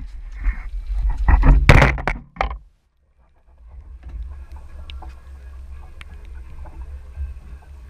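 Thumps and knocks for the first couple of seconds, then, after a brief gap, the steady low drone of a sportfishing boat's engine, with a single faint tick now and then.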